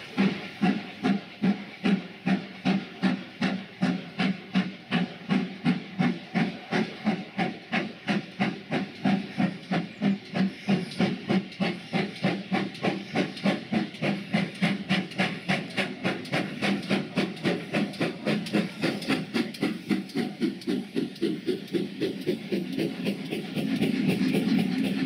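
Steam locomotive working past, its exhaust chuffing in a steady rhythm of about two to three beats a second. Near the end the carriages draw level and a louder continuous rumble of wheels on the rails takes over.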